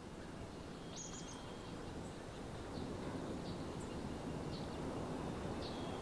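Quiet outdoor ambience: a low steady hiss with a few short, high bird chirps scattered through it, about one every second.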